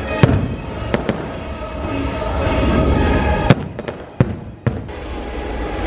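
Aerial fireworks bursting in a series of about eight sharp bangs, the loudest near the start and about three and a half seconds in, with the show's music playing underneath.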